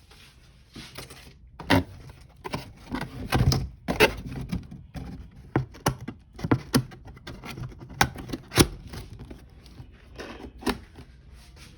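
Hands handling packaging and loose items during an unboxing: a string of irregular clicks and knocks with some rustling.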